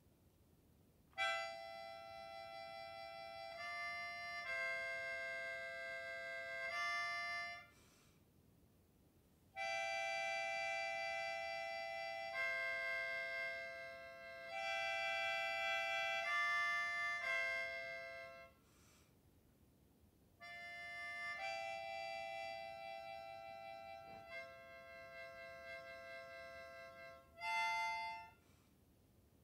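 A melodica, blown through its mouthpiece tube, playing slow phrases of held notes, often two notes sounding together. There are four phrases, separated by short pauses.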